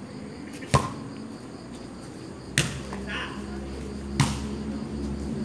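A volleyball struck by hand three times during a rally, about a second and a half to two seconds apart, each a sharp slap; the first hit, a serve, is the loudest.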